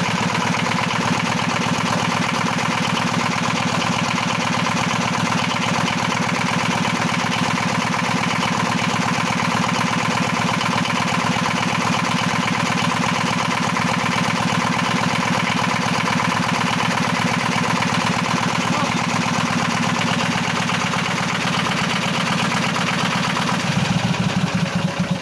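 Freshly rebuilt Multicar M22 diesel engine, running bare on the ground, idles steadily. Near the end its note changes briefly, then it shuts off.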